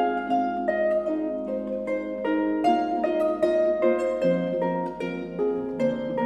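Concert pedal harp played solo: a steady run of plucked notes ringing into one another over a lower line, with deeper bass notes coming in about four seconds in.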